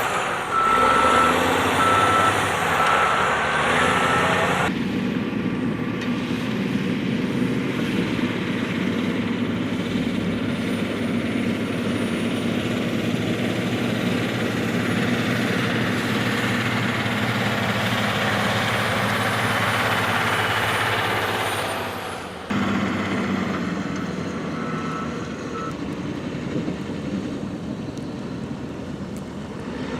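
A truck's reversing alarm beeping in an even run of short tones over steady traffic and engine noise, then beeping again briefly later.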